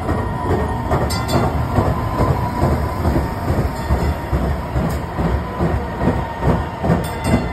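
DART light-rail train passing close by on street track: a loud, steady rumble of wheels on the rails, broken by a run of short clacks and knocks.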